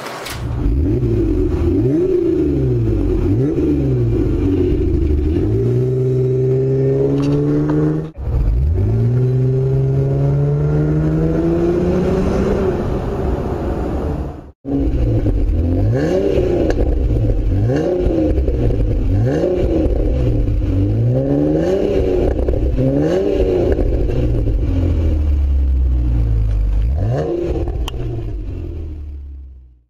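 Jeep JK's V6 engine heard through a Gibson Metal Mulisha aftermarket exhaust, revved up and down again and again. Midway the pitch climbs in one long pull as the Jeep accelerates, followed by more quick revs. The sound cuts off abruptly twice between clips and fades out at the end.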